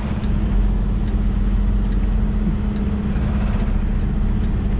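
Semi-truck's diesel engine running steadily at low revs while the tractor-trailer is slowly backed into a dock, a constant even drone with no revving.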